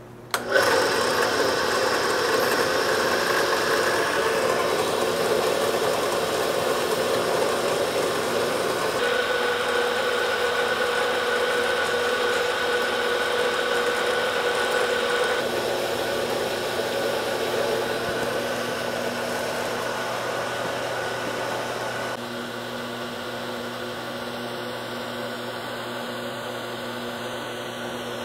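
Horizontal metal-cutting bandsaw switched on about half a second in, then running steadily as its blade cuts through a solid 6061 aluminum round bar under a heavy flow of coolant. The blade is not aggressive enough for aluminum, so it cuts slowly.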